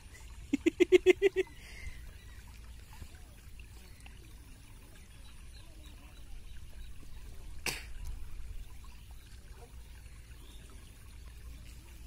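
Water trickling steadily through a cut in a mud bank into the mouth of a mesh fish trap. About half a second in comes a quick run of about seven short pitched calls from an unseen animal, and there is one sharp click about two-thirds of the way through.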